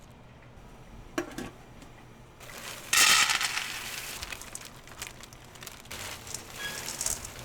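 Food-preparation handling sounds: a light clink about a second in, then a sudden loud crackling crunch near three seconds that dies away into softer rustling.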